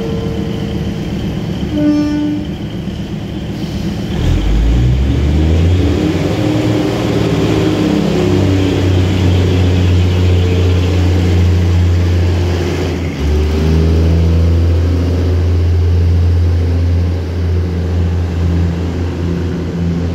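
Diesel railcar train pulling out: a short horn note about two seconds in, then the diesel engines rev up at about four seconds and keep running under load as the train accelerates away. The engine note steps to a new pitch about thirteen seconds in.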